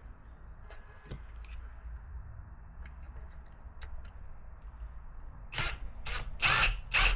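Screws being started with a screwdriver to fasten a car door speaker to its bracket: a few faint clicks at first, then a run of louder scraping and rattling bursts over the last two seconds.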